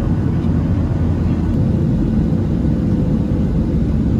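Steady low drone of a passenger airplane's cabin: engine and airflow noise, even throughout.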